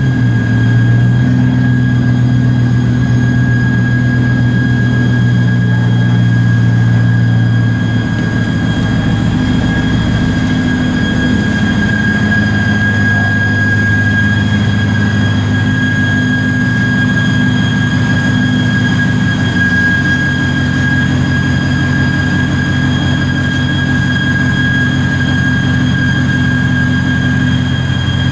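Compressed air filling a large inflatable pipe plug through its inflation hose: a steady high whistle over a low droning hum that shifts pitch a few times.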